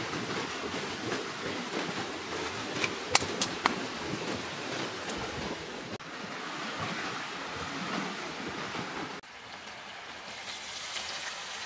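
Steady rustling of leaves and branches as someone pushes through undergrowth, with a few sharp snaps about three seconds in. Near the end it drops to a quieter, steady hiss.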